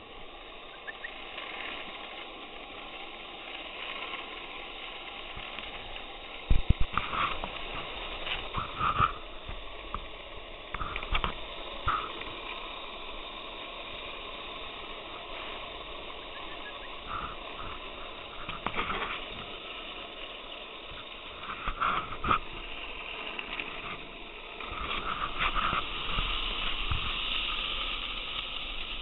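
Skateboard wheels rolling steadily over a path as a bulldog tows the board, with a row of sharp knocks and clatters from the board over bumps, the loudest about a quarter of the way in and again toward the middle.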